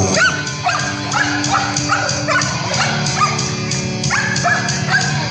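A frisbee dog yipping and barking over and over in short, high, rising-and-falling yelps, about two or three a second: the excited barking of a dog waiting for the handler to throw a disc. Music with steady notes plays underneath.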